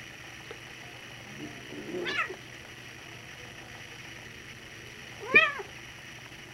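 A cat meowing twice in short cries during rough play, the second louder than the first and about three seconds after it.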